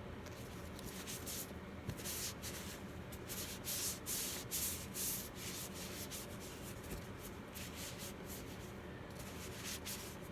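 Cloth dampened with alcohol rubbing over a vinyl doll head: a run of irregular wiping strokes, busiest around the middle.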